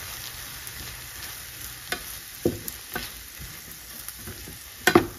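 Onion-tomato masala with freshly added ground spices frying in a metal pan with a steady low sizzle as a metal spoon stirs and scrapes through it. Sharp clinks of the spoon against the pan come a few times, loudest in a quick cluster near the end.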